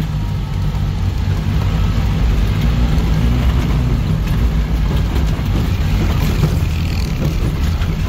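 Off-road 4x4's engine running under load on a climb, a steady low rumble with scattered knocks and rattles from the body jolting over rough, uneven ground.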